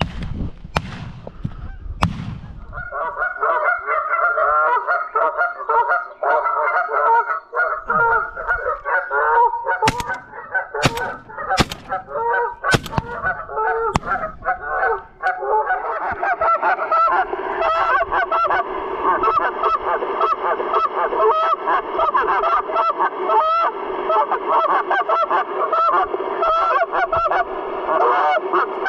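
A flock of geese honking, many overlapping calls that fill out about halfway through, mixed with shotgun shots: two near the start and a quick series of about five between ten and fourteen seconds in.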